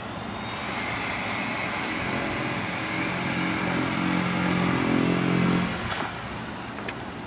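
A motor vehicle engine running steadily, growing louder to about five and a half seconds in and then falling away suddenly around six seconds.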